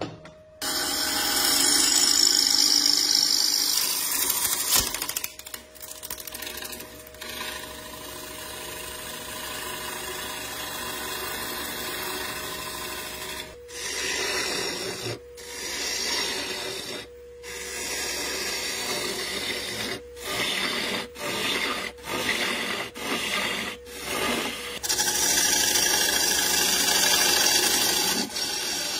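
Turning gouge cutting into a wooden disc spinning on a wood lathe: a steady scraping hiss of shavings being peeled off, with a steady hum beneath. The cutting breaks off in several brief silences through the middle and back half, and is loudest near the start and near the end.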